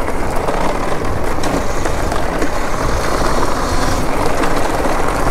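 Tyre and wind noise from a Talaria electric dirt bike ridden fast over a rough gravel road: a loud, steady rush with a few small ticks and no engine note.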